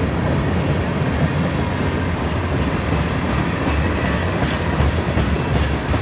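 Freight cars of a CSX manifest train rolling past close by: a steady low rumble of steel wheels on rail, with quick clicks of wheels over rail joints from about two seconds in.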